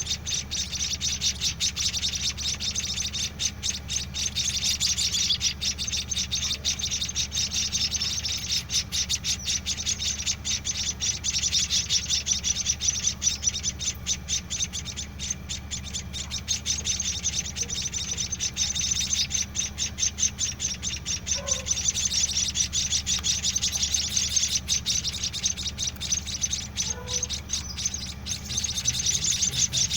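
Seven-day-old white-headed munia (emprit kaji) nestlings calling with fast, continuous high chirps, the begging calls of chicks being hand-fed. A steady low hum runs underneath.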